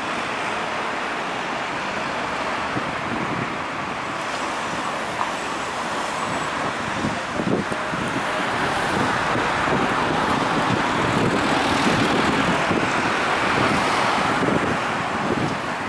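Road traffic passing on a road, a steady rush of tyres and engines that grows louder for several seconds in the second half as a vehicle goes by.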